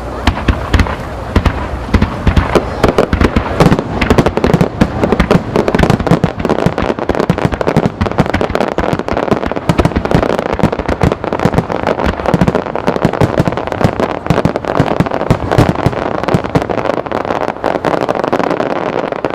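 Star mine fireworks barrage: a dense, rapid stream of shell launches and bursts, many bangs a second, that begins abruptly and continues loudly without a pause.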